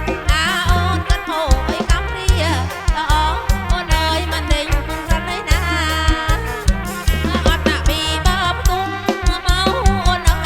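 Live kantrum band music played loud through a PA system: a steady drum beat over heavy, pulsing bass notes, with a wavering melody line above.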